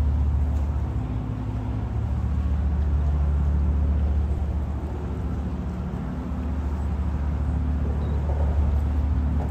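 Boat engines running with a low, steady drone.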